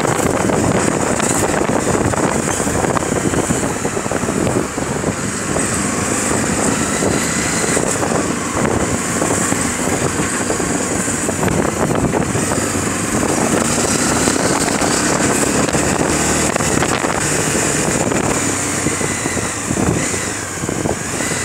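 Motorcycle riding at low street speed: its engine running, with steady wind rush on the handlebar-mounted phone's microphone.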